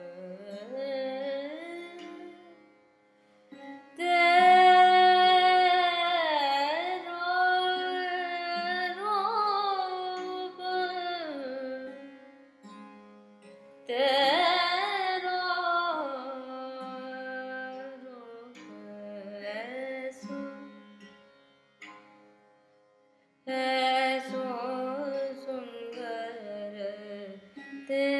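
Wordless Indian classical singing in raga Rageshree: long held notes bending and gliding with ornaments, over a steady drone. The phrases break off briefly twice, once about three seconds in and once past twenty seconds.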